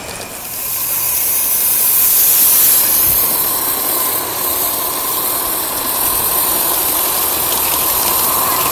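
Live-steam garden-scale model locomotive hissing steam, a loud steady high-pitched hiss that rises about half a second in and keeps on.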